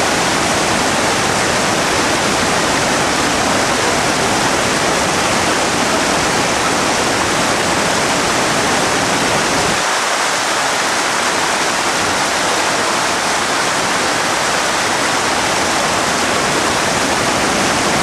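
Broad river waterfall and rapids: a loud, steady rush of water. The deep low rumble in it thins out about ten seconds in.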